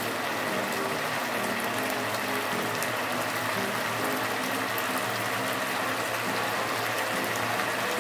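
Thick chili sauce with chicken feet simmering in a wok, bubbling steadily with a scatter of small pops as the liquid reduces.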